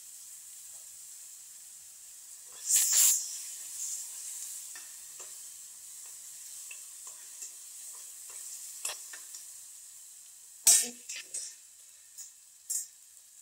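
Chopped tomatoes frying in an oil tadka of cumin and turmeric in a steel kadhai, a faint steady sizzle. A metal spoon stirs them, scraping and knocking against the pan several times, loudest about three seconds in and again near eleven seconds.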